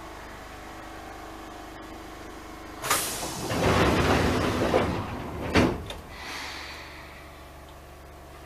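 Enshu Railway 1000-series train's air-operated doors: a hiss of compressed air starting about three seconds in and ending in a thud just before six seconds, over a steady low hum.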